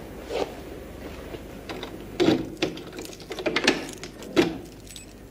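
A bunch of keys jingling and a key being worked in a door lock: a run of sharp metallic clicks and rattles, thickest past the middle.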